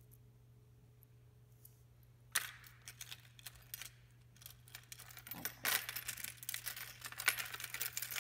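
Handling noise from clear plastic tackle boxes and lures. It is quiet at first over a faint low hum, then a sharp click comes about two seconds in, followed by a run of irregular clicks, rattles and rustling as the boxes are moved and handled.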